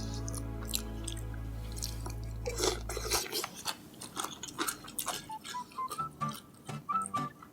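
Background music, a long low note and then short plucked high notes, over close-up mouth sounds of eating Jjapagetti noodles: chewing and smacking.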